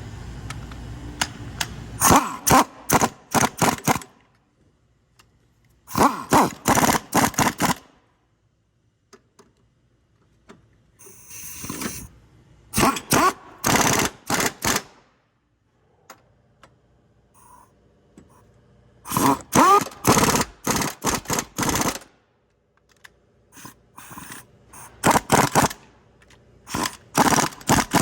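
Hand ratchet wrench clicking in five short bursts as the new engine mount's bolts and nuts are tightened, with pauses between the bursts.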